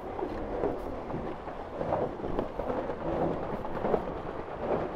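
Wind buffeting the microphone and water rushing along the hulls of a Tornado catamaran sailing at speed: an uneven, rumbling wash of noise with irregular swells.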